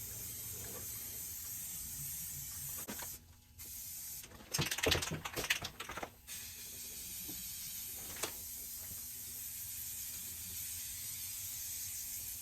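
Aerosol spray paint hissing steadily from a can as an engine block is painted. The spray stops briefly about three seconds in, a louder noisy stretch follows around the middle, and then the steady spraying resumes.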